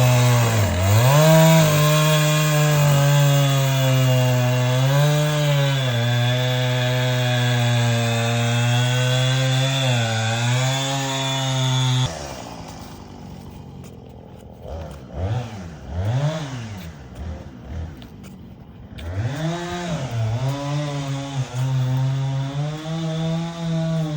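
John Deere 317G compact track loader's diesel engine running at high revs, its pitch sagging and recovering several times as the hydraulics take the load of the grapple lifting. About halfway through it drops abruptly to a quieter stretch with rising and falling revs, then comes back loud near the end.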